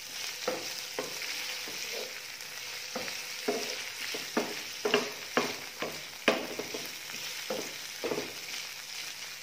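Meat pieces sizzling in a nonstick frying pan while a spatula stirs them, scraping and knocking against the pan about twice a second over a steady frying hiss.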